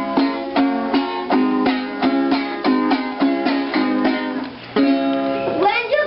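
Music led by a plucked string instrument, with notes picked out about three times a second. Near the end a voice starts singing over it.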